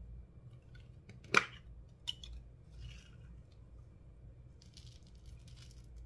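Handling sounds from slime and makeup mixing: one sharp click a little over a second in, a lighter click soon after, then short scraping and scattered faint clicks and rustles.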